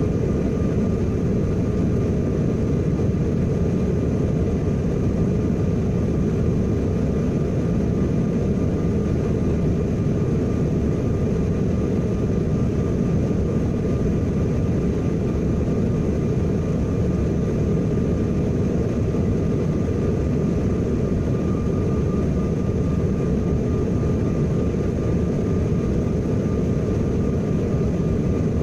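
Steady cabin noise of a Bombardier CRJ1000 jet airliner in flight: a low, even rush of airflow and engine noise with a faint steady whine on top.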